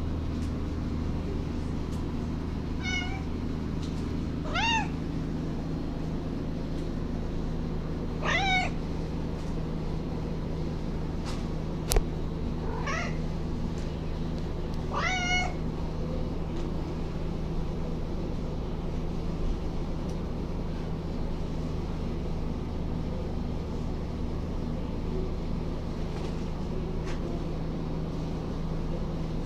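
Domestic cat meowing, five short calls spread over the first half, over a steady low hum. A single sharp click about twelve seconds in.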